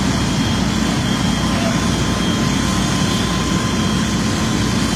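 Fire apparatus diesel engines running steadily, a constant low rumble with a faint steady whine above it.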